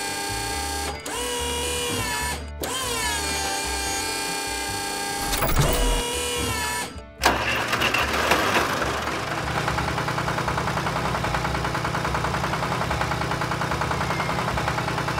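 Cartoon sound effects: a machine's electric whir, a steady pitched whine that breaks and restarts twice, each time with a dip in pitch, and cuts off suddenly about seven seconds in. Then a tractor engine runs with an even, low chug as the tractor pulls away.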